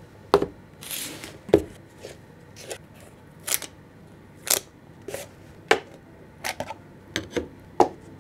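Cardboard tube packaging being handled and opened on a table: a dozen or so sharp taps and knocks, with a brief scrape of cardboard sliding about a second in.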